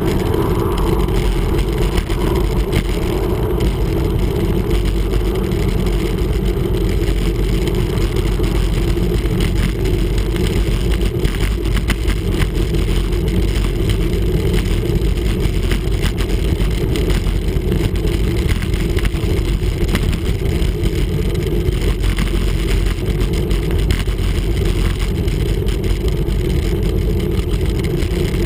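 Wind rushing over the microphone of a handlebar-mounted camera on a road bike at speed: a loud, steady, low rumble.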